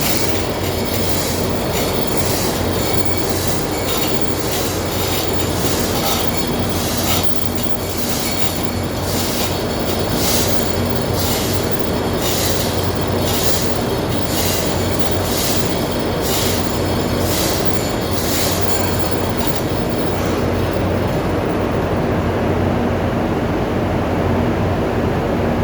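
Loud, steady ship engine-room machinery noise with a low hum, and a run of sharp metallic clicks and taps over it that stops a few seconds before the end.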